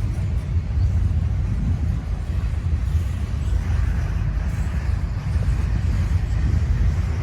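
Norfolk Southern eastbound intermodal freight train rolling past, a steady low rumble of wheels on rail.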